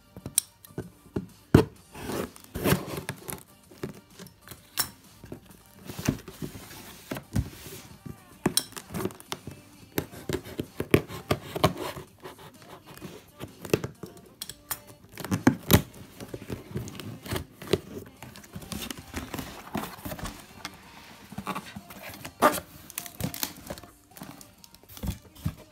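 Scissors cutting packing tape and a cardboard shipping box being torn open and handled: irregular snips, scrapes, crinkles and knocks.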